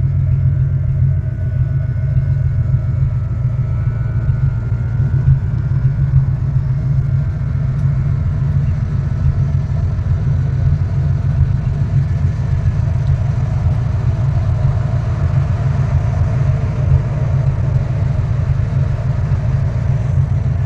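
1972 Pontiac Grand Prix V8 engine idling, a steady low rumble.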